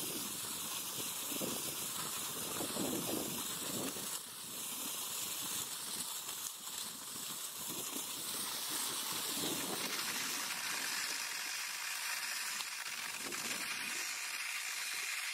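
Cross-country skis gliding in a groomed classic track, a steady hiss of the bases on the snow, with a low rumble that swells and fades every second or two.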